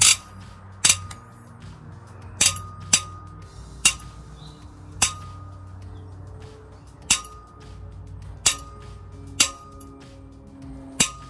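Cylinder head bolt on a Toyota 2ZR-FXE engine being torqued with a wrench: about ten sharp metallic clinks at uneven intervals, each with a short ring. The oiled bolt is binding and snapping round in jerks under the load.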